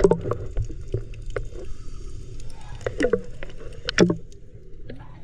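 Kayak paddle splashing in the water, with three sharp splashes: right at the start, about three seconds in and about four seconds in.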